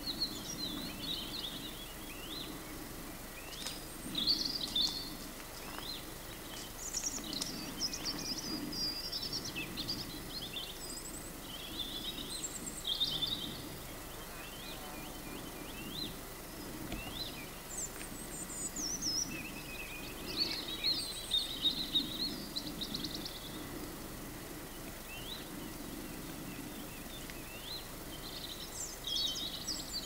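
Several songbirds singing and calling at once: short chirps, trills and whistled phrases coming and going throughout, over a low steady rushing background.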